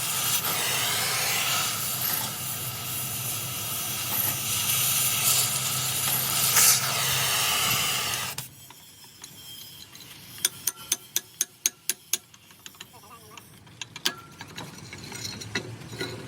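A loud steady hiss, like gas or air escaping, that cuts off suddenly about eight seconds in; then a quick run of sharp light taps, and a few more scattered taps near the end.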